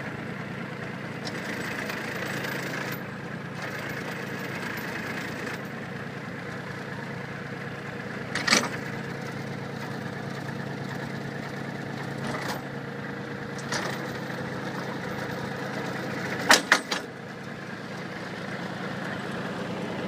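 Tractor engine idling steadily, with a few sharp clicks over it: one about eight seconds in and a quick pair, the loudest sounds, about three quarters of the way through.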